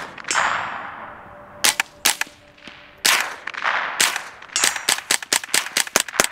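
Rifle gunfire: several single shots about a second apart, each trailing off in an echo. About two-thirds of the way in, rapid fire begins at roughly six shots a second. The shooter says the rifle overgasses and that this is what the noise is.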